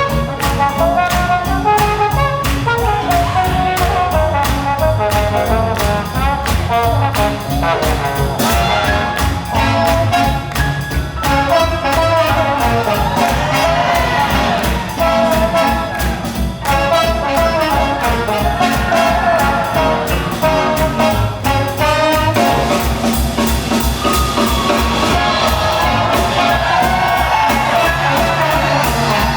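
Swing jazz band playing: trumpets and trombones carry the melody over a steady rhythm-section beat.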